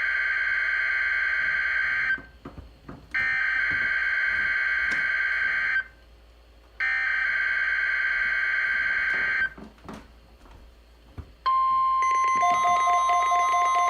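NOAA Weather Radio SAME alert header: three identical bursts of electronic data tones, each about two and a half seconds long with a pause of about a second between them, coding a Required Weekly Test. About eleven seconds in, a steady alert tone starts, and a second, lower tone soon joins it.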